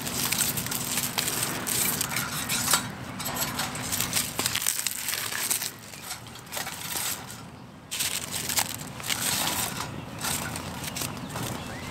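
Dry reed stalks crunching and snapping in irregular bursts as they are broken and laid by gloved hands onto a small fire in a metal fire box.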